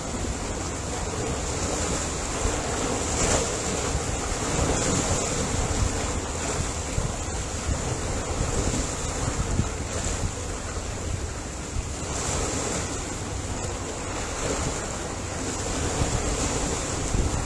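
Ocean surf: a steady rush of waves washing onto the shore, swelling gently now and then, with a low rumble of wind on the microphone.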